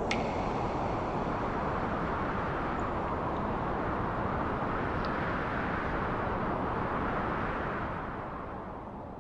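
A steady rushing noise like wind, with no distinct events, fading down over the last second or two.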